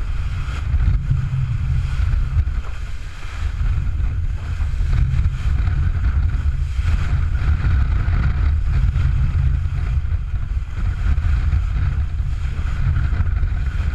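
Strong wind buffeting the microphone over the rush and hiss of water and spray along the hull of a sailboat heeled over and driving through rough, wind-driven seas.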